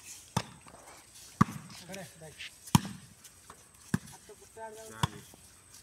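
A volleyball struck by hand during a rally: five sharp slaps about a second apart, the loudest near the middle. Short shouts from the players come between the hits.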